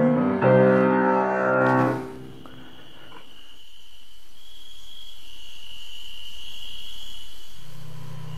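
Piano music ending on a held chord about two seconds in. Then a faint, steady, high-pitched chirring like crickets over a slowly swelling hush, with a low hum coming in near the end.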